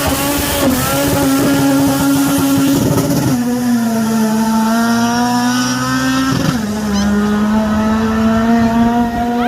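Toyota Corolla's 2ZZ-GE four-cylinder engine pulling hard at high revs through the gears. The pitch climbs steadily, with two sharp drops at gear changes, about a third of the way in and about two-thirds of the way in.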